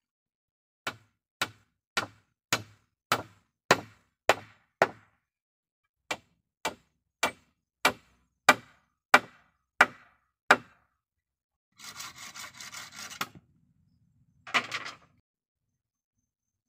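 Hammer nailing a wooden crossbar to an upright pole: two runs of about eight steady blows each, close to two a second, with a short pause between them. A short scraping rustle and a brief scuffing sound follow near the end.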